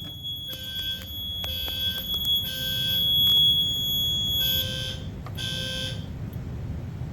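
Fire alarm sounder giving a steady, piercing high-pitched tone for about four seconds, then two short blasts, then cutting off about six seconds in, over a low steady hum.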